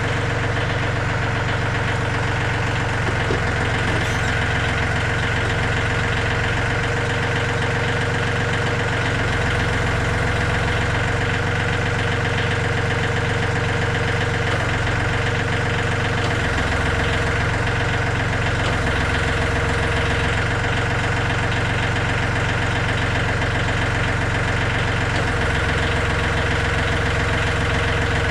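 John Deere 3320 compact tractor's diesel engine running steadily at idle.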